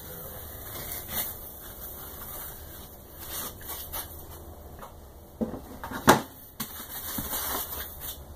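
A white foam packing insert is handled and lifted off a laser-cut wooden frame, making rustling and scraping with scattered light knocks. The sharpest knock comes about six seconds in.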